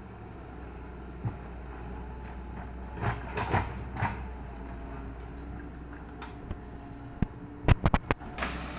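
Doosan 140 wheeled excavator's diesel engine running steadily as it digs, with scattered knocks and clanks and a quick run of sharp clacks near the end.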